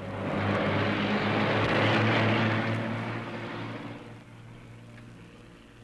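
Low engine drone that swells up, is loudest about two seconds in, and fades away over the next two seconds, leaving a faint hum.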